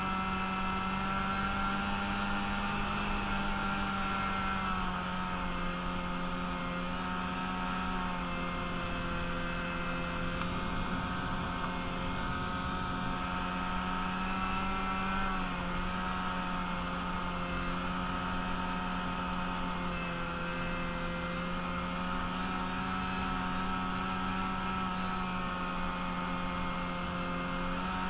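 Engine of a freshly rebuilt vehicle running under way at fairly steady high revs, its pitch sagging and recovering slightly a few times.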